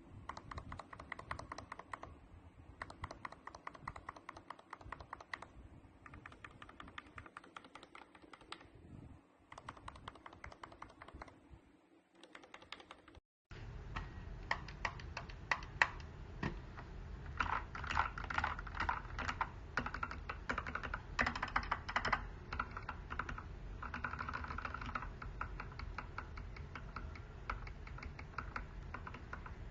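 Rapid, continuous typing on a mechanical keyboard fitted with Gateron Ink Black v2 linear switches. The typing stops briefly about 13 seconds in, then resumes louder and fuller.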